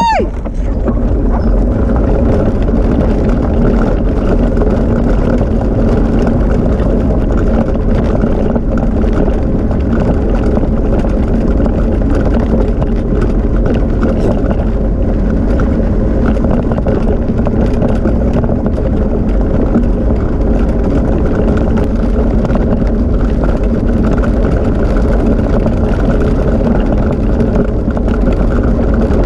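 Steady, loud rushing noise of wind on the camera microphone mixed with the rolling of the rig being pulled at speed by a harnessed dog team over road and dirt track.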